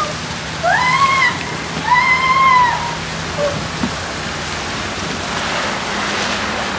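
Water rushing steadily out of a water slide's tube and down its splash-down runout. A voice gives two long, drawn-out cries about one and two seconds in.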